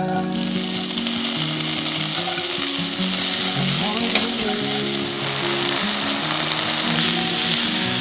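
Diced sausage, onion and sliced mushrooms sizzling as they are sautéed in a hot pan and stirred with a spatula; the sizzle starts just after the sausage drops into the pan.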